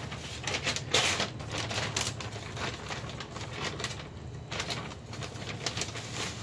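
Irregular rustling and light clicks from hands handling potting mix and plastic nursery pots, with one sharper burst about a second in, over a steady low hum.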